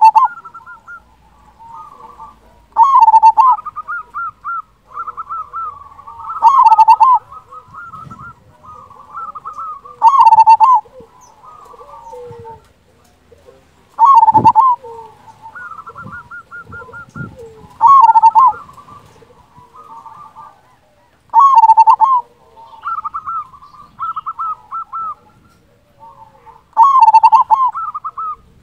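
Zebra dove (perkutut) cooing: a loud rolling phrase comes about every three to four seconds, with softer runs of quick cooing notes in between.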